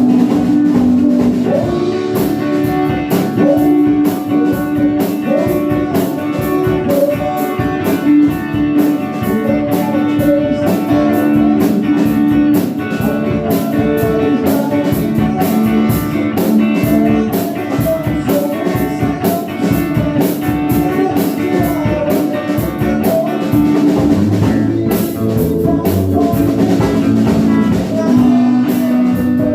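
Music: a band playing, led by guitar over a drum kit keeping a steady beat.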